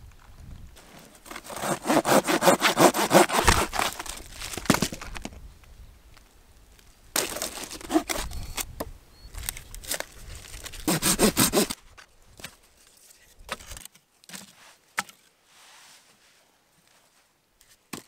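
A hand saw cutting wood in three bouts of quick rasping strokes: a long one of about four seconds near the start, then two shorter ones. A few faint knocks follow.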